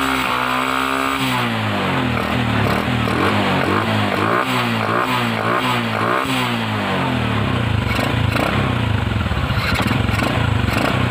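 Honda Karisma 125 single-cylinder four-stroke engine revved after a carburetor repair-kit rebuild. One long rev near the start falls away, then comes a run of quick throttle blips, several a second apart, and it settles to a steady idle about seven seconds in. It picks up and runs smoothly, without the earlier bog.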